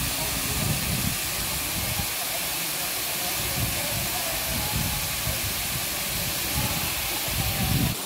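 Steady rushing hiss of a tall waterfall, Ng Tung Chai's main falls, with uneven low rumbling that comes and goes.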